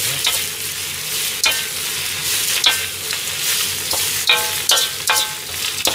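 Shredded cabbage and carrot sizzling in oil in a wok while a metal ladle stirs and turns them, scraping and clinking against the pan about once a second; the last few strikes ring briefly. The vegetables are giving off their water as they wilt down.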